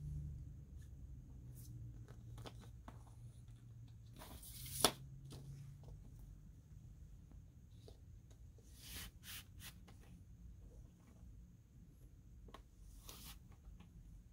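Faint rustling and scraping of a vinyl record's cardboard jacket and printed paper insert being handled and slid across a quilted bedspread, with one sharp snap of card about five seconds in.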